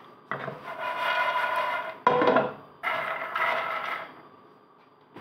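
A pan rubbing and scraping on the gas stove's grate in three strokes, each with a steady squeaky tone; the first stroke lasts nearly two seconds.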